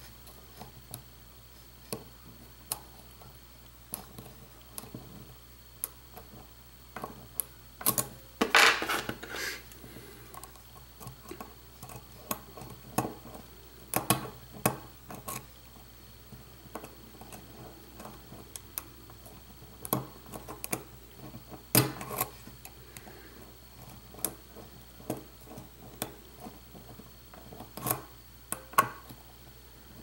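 Irregular small metallic clicks and ticks of a hook pick and tension wrench working the pins of a Eurospec lock cylinder, with a longer, louder rustling scrape about nine seconds in.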